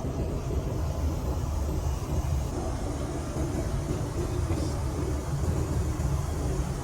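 Steady low drone of a Boeing 737 MAX 8's cabin in flight: engine and airflow noise heard from an economy seat.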